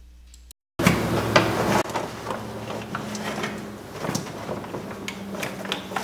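A plastic car door trim panel being handled and fitted against the door, starting about a second in: irregular clicks, knocks and rustling of plastic against the door.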